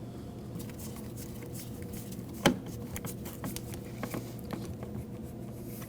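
Screwdriver driving door-panel screws into plastic grommets: quiet handling with one sharp click about two and a half seconds in and a few light ticks after it, over a steady low hum.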